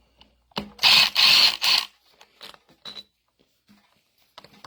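A power tool run in three short bursts, about a second in, while working on a mini excavator's hydraulic pump, with faint ticks and knocks of tools around it.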